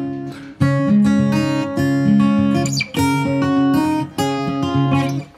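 Instrumental background music of strummed guitar chords, with brief breaks between phrases.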